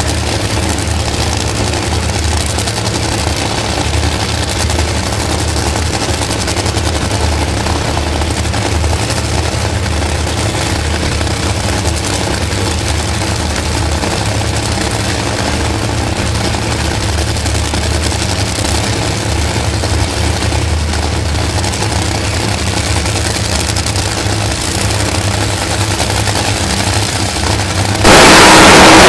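Two Top Fuel dragsters' supercharged nitromethane V8 engines idling at the starting line with a loud, rough crackle. About a second before the end it suddenly gets much louder as the engines go to full throttle for the launch.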